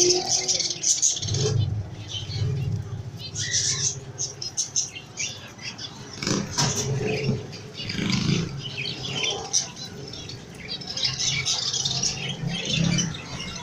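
A flock of birds chirping over and over, with short bursts of wing flapping and a low hum underneath.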